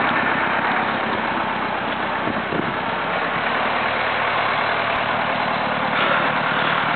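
Diesel farm tractor engine running steadily and hard, under heavy throttle.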